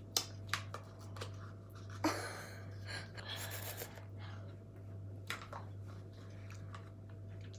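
A few light clicks of a spoon against a small pot during eating, with two breathy exhales about two and three seconds in, over a steady low hum.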